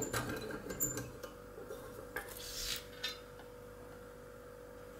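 Small metallic clicks and rubbing as a brass lock cylinder is worked loose from a lock vise and handled in the hand, mostly in the first three seconds, over a faint steady hum.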